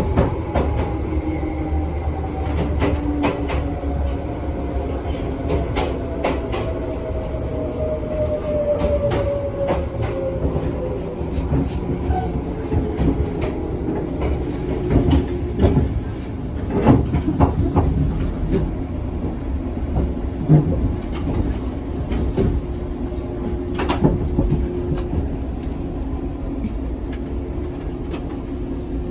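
Izukyu 2100 series resistance-controlled electric train running, heard from inside the car: steady rumble with scattered clacks over rail joints. Through the first twelve seconds or so a whine falls steadily in pitch as the train slows. A steady tone holds near the end.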